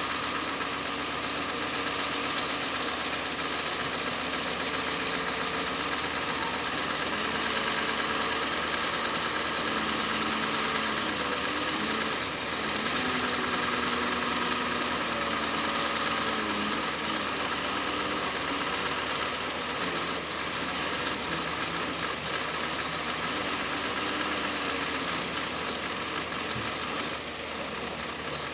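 Scania hook-lift truck's diesel engine running as the heavily loaded truck pulls away slowly, its engine note shifting up and down a few times midway and growing fainter near the end.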